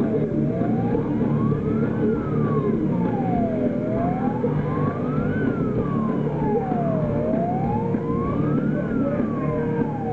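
Wailing siren over a concert PA, rising and falling slowly about every three and a half seconds, over a dense low wash of stage sound and crowd noise at a loud metal show.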